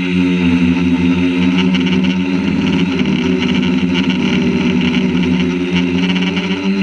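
Quadcopter drone's electric motors and propellers running with a steady whine, heard from a camera mounted on the drone itself. The pitch wavers about three seconds in as the drone maneuvers and turns.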